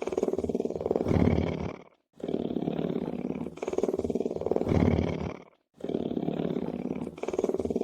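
Lion purring: a low, rumbling pulsed sound in long breaths of about three and a half seconds each, every breath growing louder toward its end, with a brief pause between breaths.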